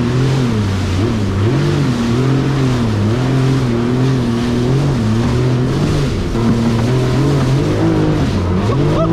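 1100 cc jet ski engine running hard under throttle, its pitch swinging up and down every second or so, over a steady rushing hiss.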